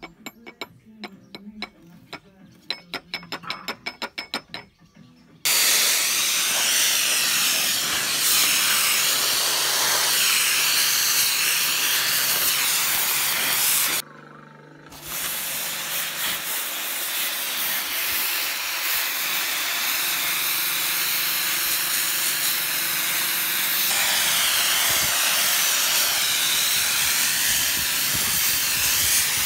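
A run of light metallic clicks, then about five seconds in a pressure washer's water jet starts hissing loudly against rusty steel mower panels. The hiss cuts out for about a second near the middle and starts again.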